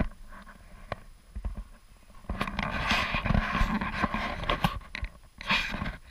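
Footsteps crunching in snow: a few separate steps, then a dense stretch of quicker crunching and scuffing from about two seconds in until about five, and one more burst near the end.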